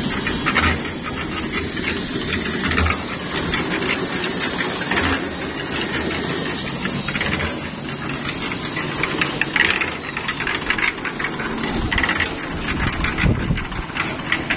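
A small engine running steadily with a knocking clatter, and two short falling whistles about halfway through.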